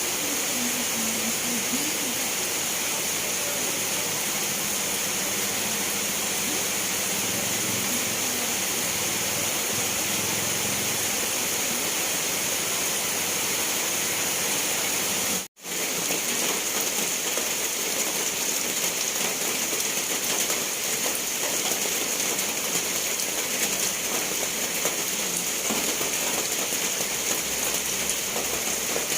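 Steady rainfall, an even hiss of rain coming down. The sound breaks off completely for a split second about halfway through.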